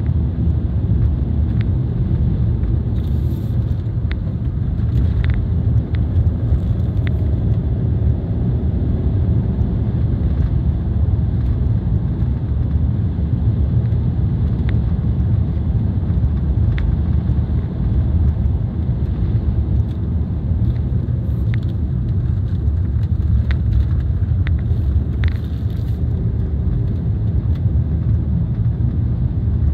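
In-cabin driving noise of a 2003 BMW 318i (E46) four-cylinder under way: a steady low rumble of engine and tyres on the road, with a few faint scattered clicks.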